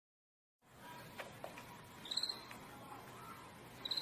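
Silence for over half a second, then faint room tone with two short, high-pitched animal squeaks, about two seconds in and again near the end.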